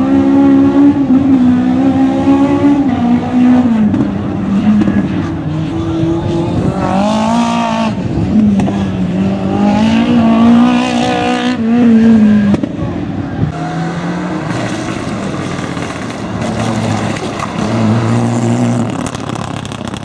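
Rally car engine at full race pace, revving hard and repeatedly rising and falling in pitch as the car accelerates, shifts and lifts off for corners. After about thirteen seconds it drops away, and a lower engine sound from another car builds near the end.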